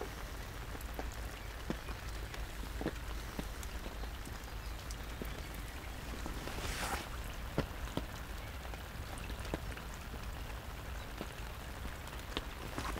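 Steady rain, with single drops ticking sharply on the fishing umbrella overhead and pattering on the lake surface. A brief swish about seven seconds in.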